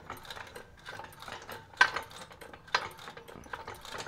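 Scattered light metallic clicks and clanks of tools and car parts being handled, at uneven spacing, with the loudest knock about two seconds in.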